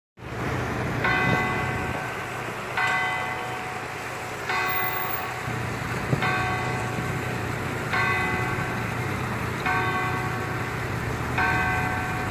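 The church clock's hour bell, a bronze bell tuned to a slightly sharp G-flat and cast by Luigi Magni of Lucca around 1951, struck by its hammer while hanging still. It gives seven strokes at an even pace of about one every one and three-quarter seconds, part of the noon hour strike, and each stroke rings on into the next. A steady low hum runs beneath.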